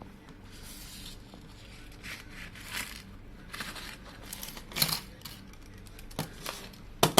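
Small tools and phone parts being handled during a smartphone teardown: several short scraping swishes, then a few sharp clicks near the end.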